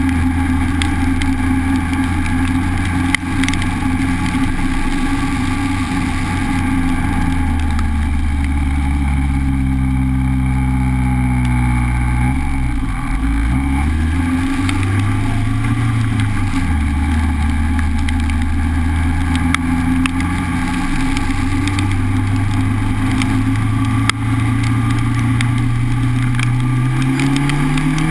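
Honda Civic engine and road noise while driving, over a steady hiss. The engine note falls as the car slows about a third of the way in, dips, climbs again and holds steady, then rises and falls once more near the end.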